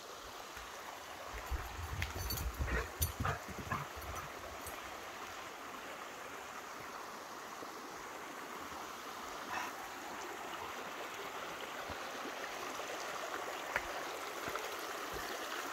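A creek running: a steady rushing of water that grows slowly louder, with a few short thumps and clicks in the first few seconds.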